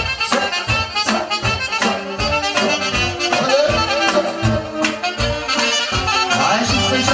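Instrumental break of lively party band music with a steady drum beat and a busy melody line.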